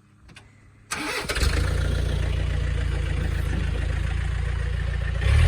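An engine cranked and started, catching about a second in and then running steadily, with its sound stepping up just before the end.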